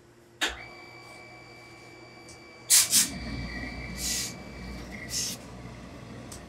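Tailor's steam iron with a supply hose pressing wool cloth: a sharp clack with a ringing tone that lingers, then short hissing bursts of steam, two loud ones close together and two more about a second apart, over a low rumble as the iron works the cloth.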